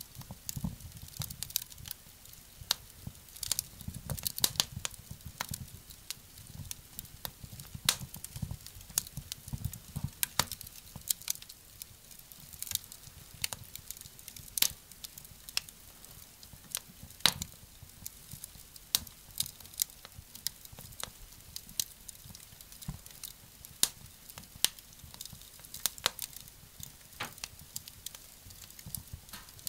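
Wood fire crackling in a small wood-burning stove: irregular sharp pops and snaps, several a second, some louder than others.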